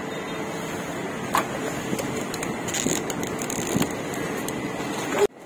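Street ambience: a steady din of traffic with a few short clatters, cutting off abruptly near the end.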